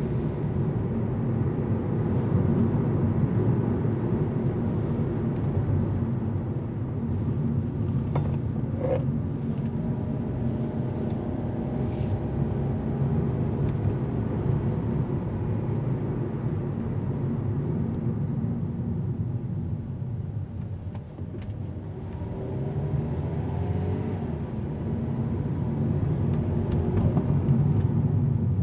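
Steady road and engine noise of a moving car heard from inside the cabin, with a few faint clicks. It dips briefly about two-thirds of the way through, then builds again near the end.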